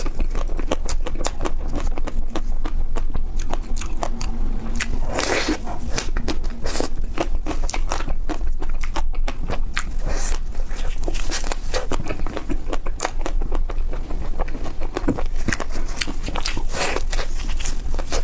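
Close-up biting and chewing of crispy ice cream: a dense run of irregular crackles and crunches, with a few louder crunching bites.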